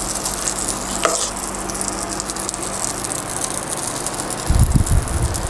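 Butter sizzling as it is rubbed over the hot plates of an electric waffle maker, a steady hiss. A few low bumps near the end.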